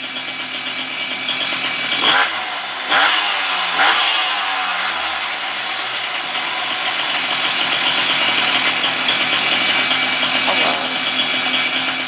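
Puch Maxi E50's single-cylinder two-stroke engine, newly rebuilt with a Polini kit, running on the stand: revved three times in quick succession about two seconds in, then running steadily. It is still running a little rich on the oil put on the piston at assembly.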